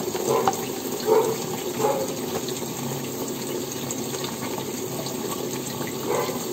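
Kitchen tap running in a spray into a stainless steel sink while hands are washed under it, with a few brief louder splashes.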